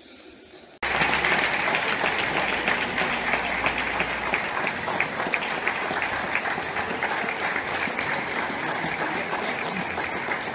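Crowd applauding steadily, a dense patter of many hands clapping that starts abruptly about a second in.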